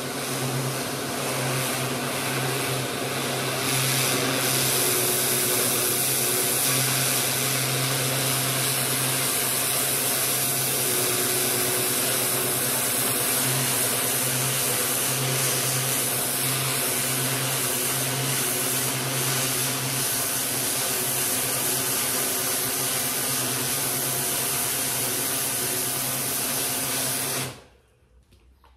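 Pressure washer running steadily, a hum under the hiss of its water jet blasting manure off a concrete shed floor. The sound cuts off near the end.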